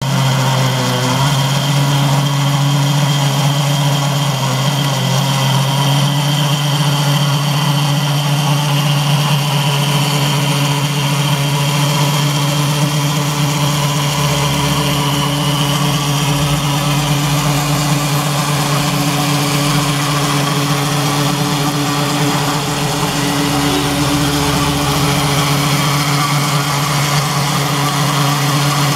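A 6V Meccano electric motor running steadily, driving a Meccano model horizontal steam engine's crank, piston and valve gear through rubber-band belt drives. It gives a steady low hum with mechanical whirring over it, even throughout.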